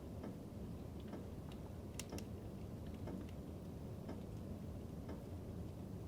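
Fire burning in a fireplace: a steady low rumble of flames with irregular small crackles, and two sharper snaps close together about two seconds in.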